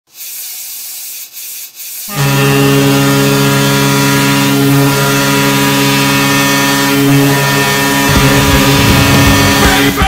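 Recorded arena goal horn: a chord of Kahlenberg KM-250 and S-203C air horns with a Nathan P3 horn, sounding one long steady blast that starts about two seconds in after a steady hiss. Rock music drums come in under the horn near the end.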